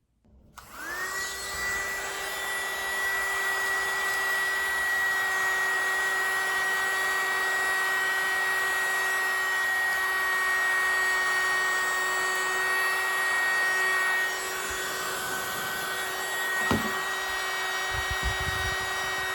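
Mini USB vacuum cleaner switched on, its small motor spinning up within the first second to a steady whine over a rush of air. The level drops slightly about three-quarters of the way through, and there is a single knock near the end.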